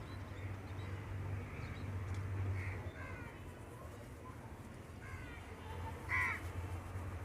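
A bird calling in the background: several short calls with falling pitch, some in quick series, the loudest about six seconds in, over a steady low hum.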